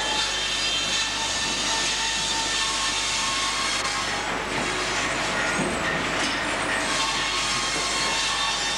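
Sawmill machinery running steadily: a dense mechanical noise with several steady whining tones on top of it.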